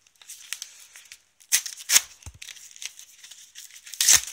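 Plastic packet crinkling and tearing as it is bitten open, with irregular crackles and sharp rips, the loudest about one and a half and two seconds in and again near the end.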